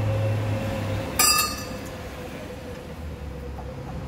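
A single sharp, ringing metal clink about a second in, as the steel bars of a Dynamoto motorcycle paddock stand are handled and knock together. A steady low hum cuts off just before it.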